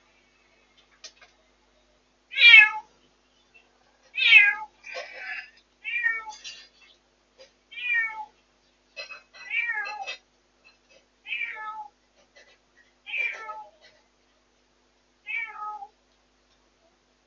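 A domestic cat meowing over and over, about nine calls, each one falling in pitch, repeated every second and a half to two seconds; the first calls are the loudest.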